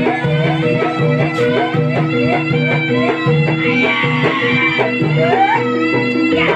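Javanese jaranan dance music: a reed wind instrument plays a short rising figure over and over, about twice a second, over a held tone and a steady beat.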